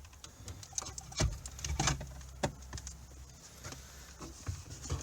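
Scattered light clicks and taps of a plastic dashboard climate control panel being handled after being pried free.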